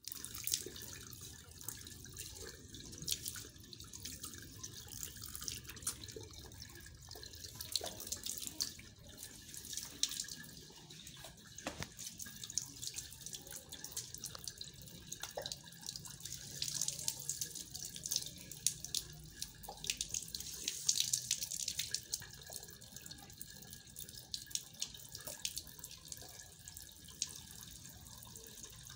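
Thin stream of water running from a wall tap and splashing onto wet floor tiles, with many small splashes and drips throughout.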